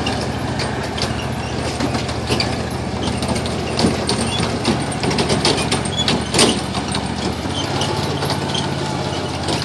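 Kiddie trackless train's small engine running steadily as it tows its passenger cars, with many short rattles and knocks from the cars rolling over the ground. The engine note shifts slightly near the end.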